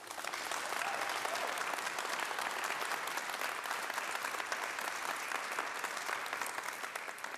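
Audience applauding: dense clapping that starts at once and tails off near the end.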